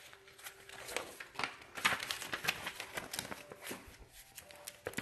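Sheets of paper rustling and crinkling as they are handled, a string of small crackles and rubs.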